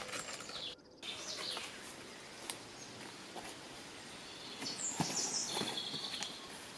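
Birds singing in the woods, with handling noises as a foam sleeping mat is set down and unrolled, including a sharp knock about five seconds in.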